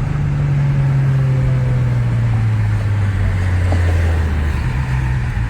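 Car engine running while driving, its note stepping up at the start and then dropping steadily over about four and a half seconds, over road noise.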